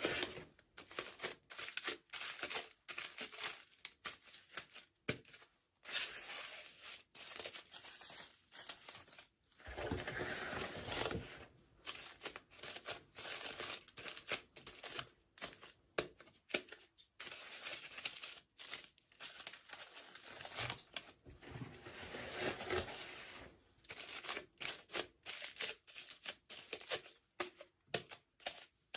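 Packaging being crinkled and torn open by hand in short, irregular bursts with brief pauses between them.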